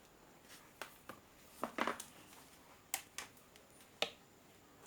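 A few sharp clicks and light taps, about six, scattered and irregular, from small objects being handled on a workbench; the loudest comes just before two seconds in.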